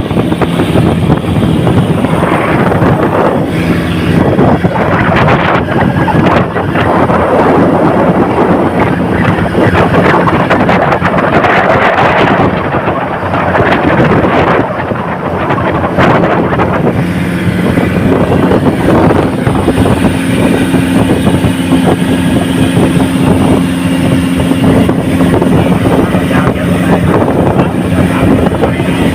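Small boat's engine running steadily under way, with wind buffeting the microphone; the engine note shifts about two-thirds of the way through.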